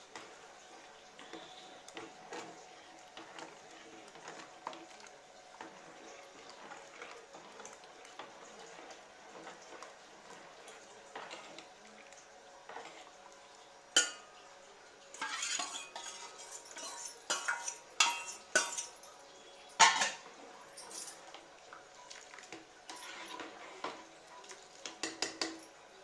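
A spoon stirring soup in a metal cooking pot, clinking and scraping against the sides in sharp irregular clinks. The clinks come in clusters from about halfway through; before that there are only faint scattered knocks.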